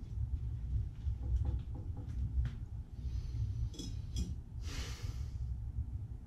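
Handling sounds: a scatter of small clicks and taps, sharper clicks just before four seconds in, then a short rustle as a brass tub spout is picked up, over a steady low rumble.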